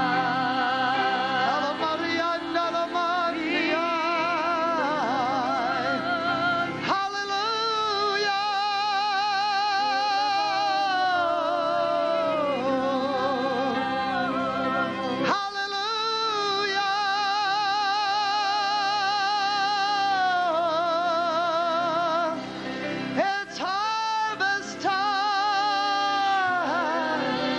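A solo voice singing long held notes with wide vibrato over sustained accompanying chords.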